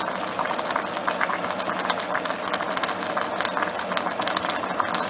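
A pot of eggplant and tomato stew simmering on the stove, bubbling and popping in a dense, steady crackle, with a faint steady low hum underneath.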